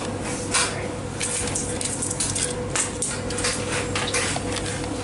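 Coins clinking and clicking as they are handled in a dryer's metal coin slide: a run of irregular, short metallic clinks over a steady low hum.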